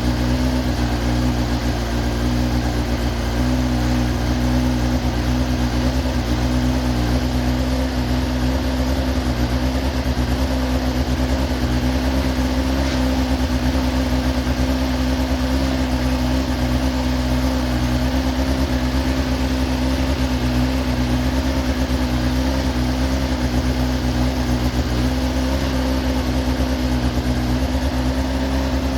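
Carburetted engine running steadily at a constant speed, its note even and unchanging.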